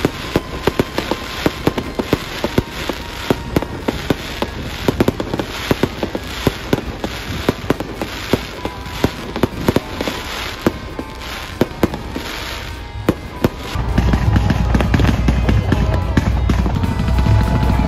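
Aerial fireworks bursting in quick succession, a rapid run of sharp bangs and crackles, several a second. About fourteen seconds in the bangs give way to a steady low rumble.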